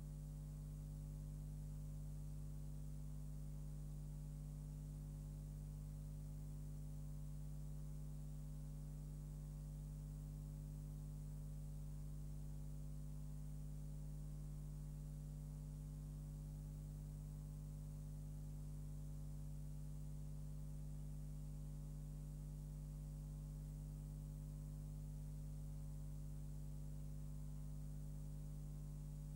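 Steady electrical mains hum with a faint hiss, unchanging throughout, and no other sound.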